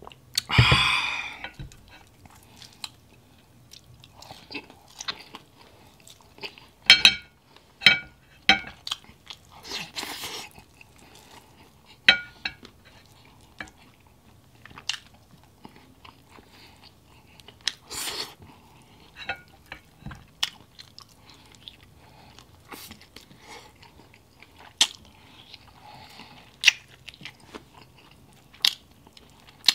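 Close-miked chewing, lip smacking and biting as grilled chicken thigh meat is eaten off the bone by hand, with scattered sharp wet clicks and smacks. About half a second in, a short vocal sound right after a drink.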